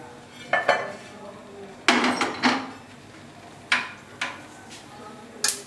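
Metal clanks and scrapes as an iron dosa tawa is set down on a gas stove's pan support, the loudest about two seconds in, with a few smaller knocks after it. Sharp clicks near the end come as the burner knob is turned to light the burner.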